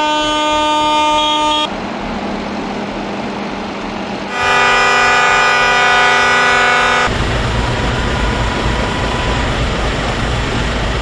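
Tractor and truck horns blaring in long held blasts: one that stops about a second and a half in, then a louder one of nearly three seconds in the middle, followed by a steady low rumble.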